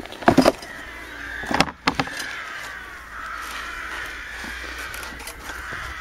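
Lawn mower grass catcher being handled, its metal frame knocking and rattling against the mower in two short bursts of clatter, about half a second in and again around a second and a half to two seconds in.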